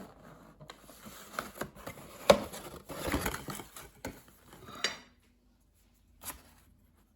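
Objects being handled at close range: a busy run of knocks, clicks and clatters for about five seconds, then a single click after a short pause.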